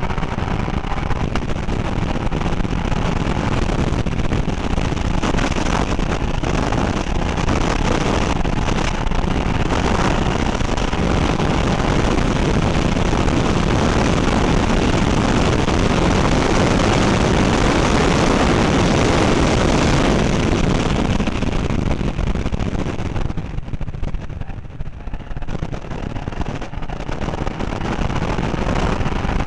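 Seat Leon Copa race car at speed on track, heard from its onboard camera: engine, wind and road noise merged into a loud, distorted wash. The level dips for a couple of seconds near the end, then comes back up.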